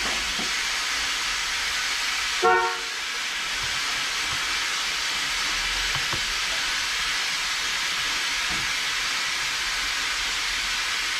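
Chevy Monte Carlo's car horn gives one short beep about two and a half seconds in, over a steady hiss. The horn is being tested while wiring a newly fitted steering wheel, after it had not been working.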